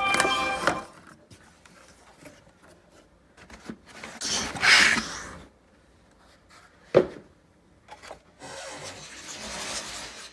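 Cardboard speaker box and its packaging being handled and opened: a short squeak at the start, a loud rasp of cardboard about four to five seconds in, a sharp knock about seven seconds in, and steady rubbing near the end.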